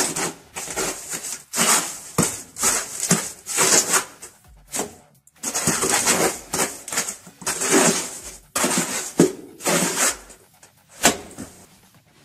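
A trowel scraping and spreading cement mortar into a broken-out concrete block wall, in a run of irregular scraping strokes, with one sharper knock near the end.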